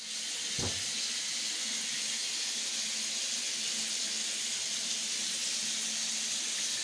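Tap water running steadily into a bathtub, a constant hiss, with a single light knock about half a second in.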